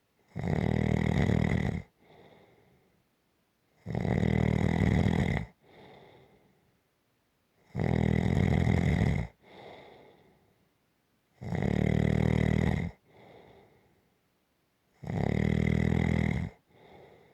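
A sleeping person snoring in a steady rhythm: five loud, buzzing snores about every three and a half to four seconds, each followed by a much softer breath.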